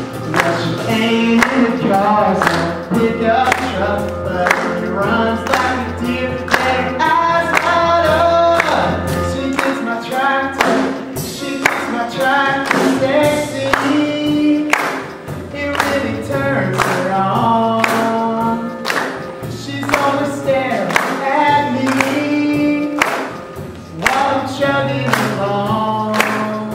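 A man singing a country song into a microphone over instrumental accompaniment with a steady beat.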